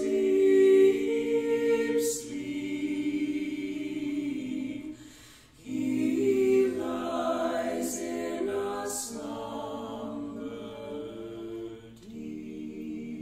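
Mixed a cappella quartet of two women and two men singing a Christmas carol in close harmony, holding long chords. The singing breaks off briefly about five seconds in and then goes on.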